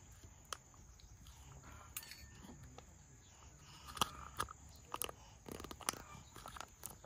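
Faint, irregular mouth clicks and smacks of a small child eating while being spoon-fed, more frequent in the second half.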